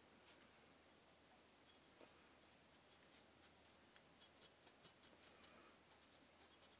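Faint scratchy rubbing and small ticks of a cotton swab scrubbing inside a Glock 17's slide, with the ticks coming more often in the second half.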